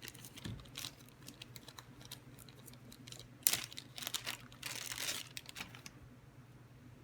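Crinkling and rustling of packaging being handled, in scattered crackles, with a sharp crackle about three and a half seconds in and a longer rustle around five seconds in.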